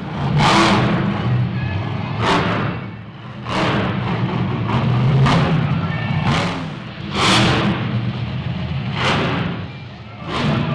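Monster truck engine running loud, revving up in repeated bursts every one to two seconds as the truck drives over the dirt.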